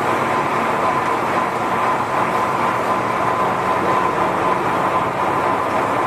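Three-sided CNC boring and turning machine running, cutting a cast iron valve body: a steady machining noise with a constant high tone through it.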